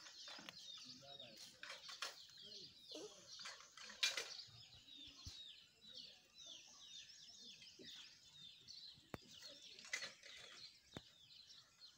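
Faint chattering of small birds, many quick high chirps running on without a break, with a few soft knocks, the sharpest about four seconds in.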